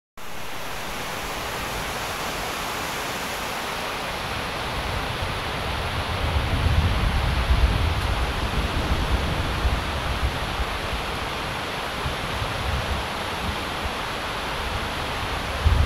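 Fast-flowing river in flood rushing in a steady wash of water noise. Low rumbling buffets come and go, strongest a little before halfway.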